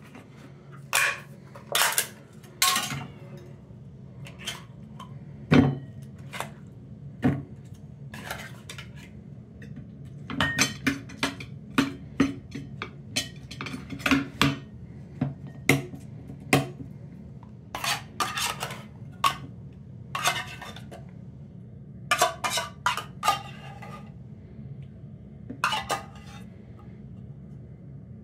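A metal spoon clinking and scraping against stainless steel bowls and a pull-tab can as wet cat food is opened and spooned into three bowls: irregular sharp clinks and scrapes over a steady low hum.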